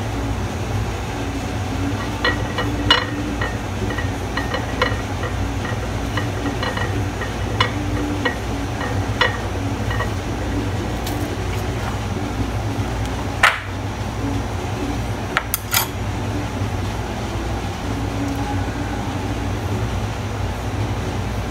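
Light clinks and taps on a ceramic plate as yema balls are rolled in sugar: a run of small ticks in the first half, then two sharper clinks a little past the middle. A steady low hum runs underneath.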